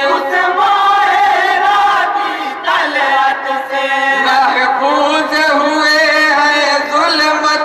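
A chorus of men chanting a devotional Urdu poem in unison into a microphone, holding long sustained notes.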